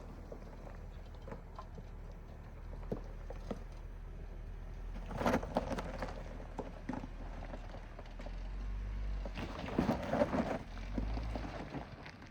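2014 Jeep Wrangler Rubicon creeping over a rocky off-road trail: tyres crunching on stones with scattered knocks and clatters over a low steady rumble. It gets louder about five seconds in and again around ten seconds.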